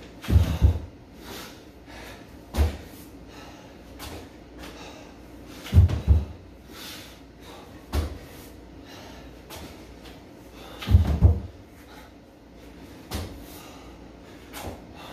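Heavy thuds of a person doing burpees on rubber gym mats: a double thud as the body drops to the floor and kicks back, then a single thud as the feet land from the jump, about one rep every five seconds.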